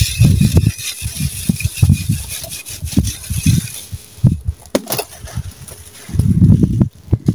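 A dry, gritty sand-cement block being squeezed and crumbled in bare hands: a string of short crunches as it cracks and breaks into lumps, with loose sand pouring off. The crunching grows denser for about a second near the end as a half-block is crushed to pieces.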